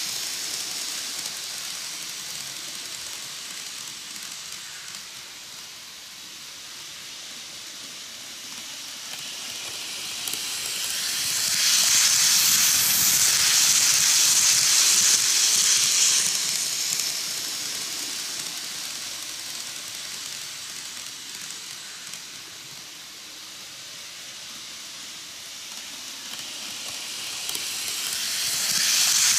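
KATO N gauge 185 series model train running on its track, giving a high hissing whir from its wheels and motor. The hiss swells as the seven-car train passes close by about halfway through, fades as it runs off round the loop, and builds again near the end as it comes back.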